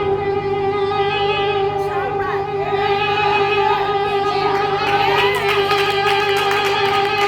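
Music: a steady held chord with voices singing or calling out over it, growing busier about halfway through.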